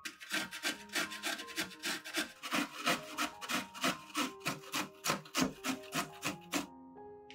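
Broccoli floret being grated on the fine holes of a metal box grater: repeated rasping scrapes, about three to four strokes a second, stopping near the end.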